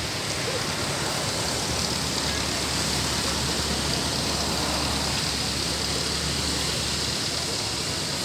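Heavy rain falling, a steady, even hiss, with a low rumble underneath from about two seconds in until about seven seconds in.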